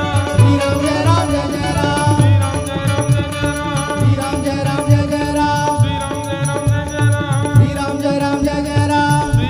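Hindu devotional bhajan music: regular low drum strokes and rattling hand percussion under a held, gently bending melody line.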